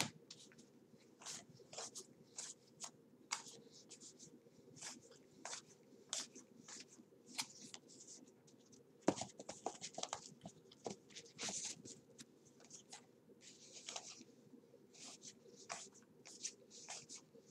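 Baseball trading cards being handled and slid off one another one at a time: an irregular run of short papery swishes and clicks.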